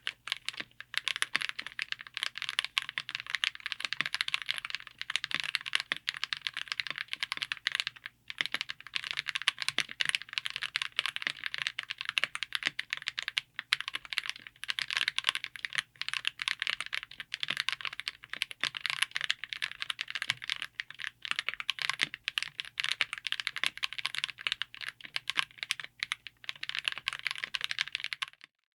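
Fast, continuous typing on a mechanical keyboard fitted with Akko V5 Creamy Blue Pro tactile switches, in a Tofu60 aluminium case with an FR4 plate: a dense run of crisp keystroke clacks. There is a short pause about eight seconds in, and the typing stops just before the end.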